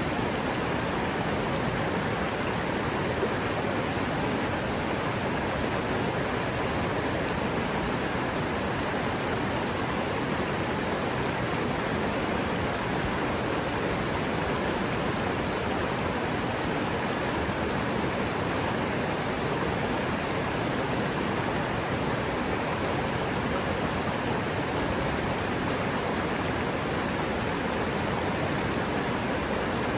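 River water running, a steady, even rush with no change throughout.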